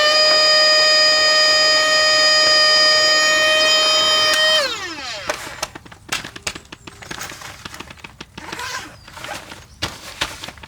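A small electric motor running at a steady high whine, switched off about four and a half seconds in and spinning down with a quick falling pitch. Then scattered clicks and knocks from handling gear.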